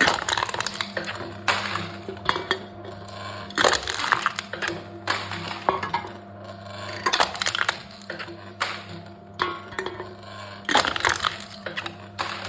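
Aluminum cans being crushed in a machine: repeated loud crunching and crackling bursts, one every second or two, over a steady low hum.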